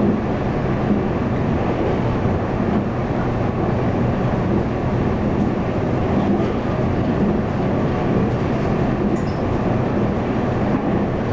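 Running sound of a Taiwan Railways local commuter train heard from inside the carriage: a steady rumble of wheels on rail and running gear at speed.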